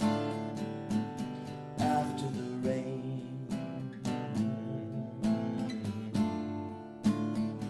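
Acoustic guitar strumming chords in a steady rhythm, the instrumental introduction to a song.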